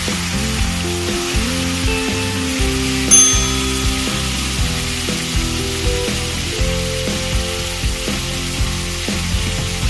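Marinated chicken pieces sizzling as they fry in a little hot oil in a pan, with background music playing over it. A brief bell-like chime sounds about three seconds in.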